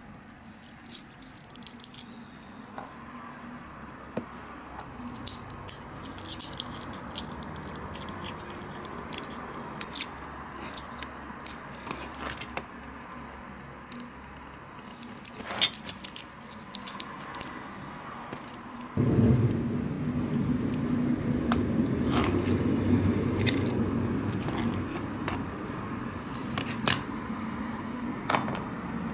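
Small crackling clicks and crinkles of thin clear cast resin being peeled and snapped away from window parts and blue silicone moulds. About two-thirds of the way in, a steady low rumble starts suddenly and runs on under the clicks.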